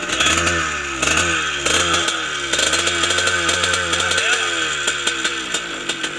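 Single-cylinder trail motorcycle engine being revved in repeated blips, its pitch rising and falling over and over, easing off a little past the middle.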